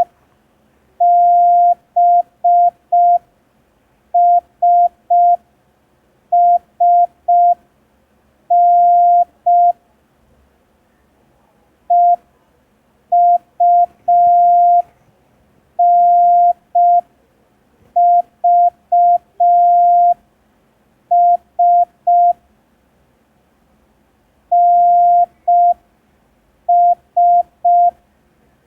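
Morse code practice tone: one steady beep keyed on and off in short dits and long dahs, sent very slowly with about a second's gap between letters. It spells B, S, S, N, E, U, N, V, S, N, S, part of a letter-copying exercise.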